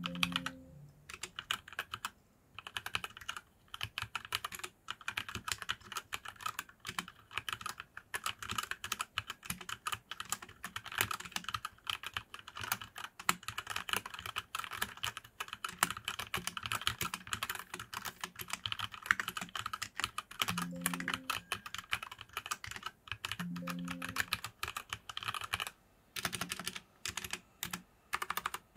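HyperX Alloy Origins 65 mechanical keyboard being typed on fast: a dense, steady clatter of key clicks. A couple of deeper thuds come about two-thirds of the way through, and the keystrokes thin out to single presses near the end.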